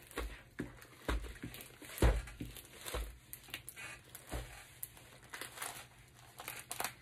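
A rolled diamond-painting canvas being unrolled and flattened by hand on a wooden table. Its plastic cover film and paper wrapping crinkle irregularly, with soft thumps as the hands press it down, the loudest about two seconds in.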